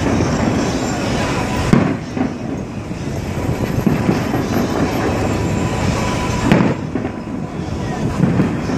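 Aerial fireworks bursting in a continuous run of booms and crackles, with two sharper bangs standing out, about two seconds in and again about six and a half seconds in.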